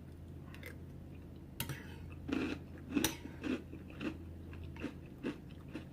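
Close-miked wet chewing and lip smacking while eating chunky canned soup: a string of short, irregular smacks.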